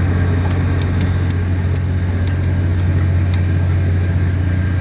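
An engine running steadily with a deep, even drone, its level unchanging. About a dozen light, sharp clicks come over it in the first three and a half seconds.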